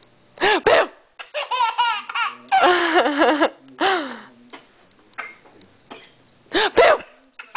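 A baby laughing in a string of separate bursts with short pauses between, including a run of quick repeated laugh pulses about a second and a half in.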